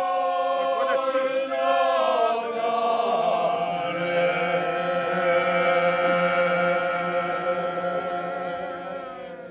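A group of men singing a traditional bećarac folk song unaccompanied, in several voices holding long notes. A deeper voice comes in about three and a half seconds in, and the singing fades out near the end.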